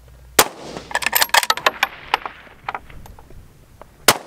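Bolt-action Remington 700 short-action rifle in a JAE-700 chassis fired twice, about three and a half seconds apart. In between, a quick run of metallic clicks as the bolt is worked and the spent case ejected.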